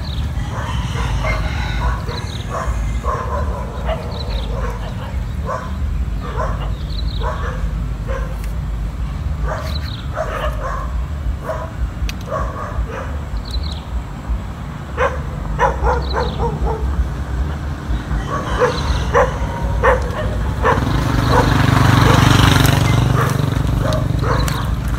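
An animal barking repeatedly in short, irregular calls over a steady low rumble, which grows louder a few seconds before the end.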